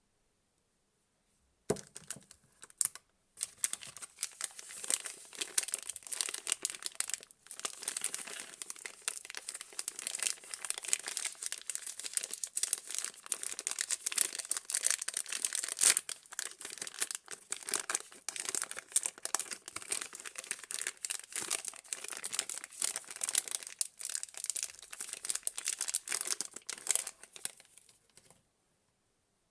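Soap wrapping being unwrapped and torn open by hand: continuous crinkling and crackling, starting about two seconds in and stopping shortly before the end.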